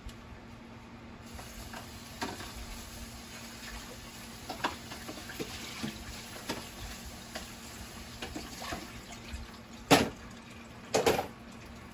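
Broth heating in a frying pan under a layer of frozen asparagus: a steady hiss with scattered small pops and crackles. Two sharp knocks about a second apart near the end.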